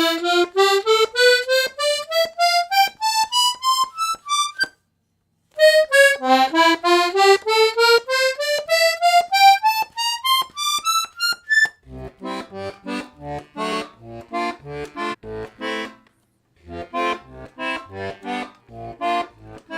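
Parrot Falcon three-row diatonic button accordion in G-C-F with two middle reeds per note. The treble buttons are played one note at a time in two rising runs, with a short break between them. Then the bass and chord buttons are played in short separate stabs.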